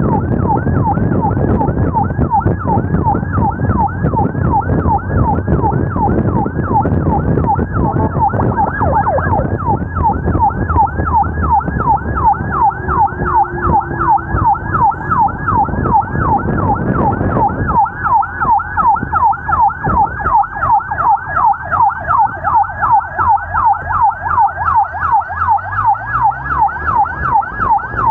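Ambulance siren on a fast yelp, about three rising sweeps a second, over a low road and engine rumble that drops away about two-thirds of the way through.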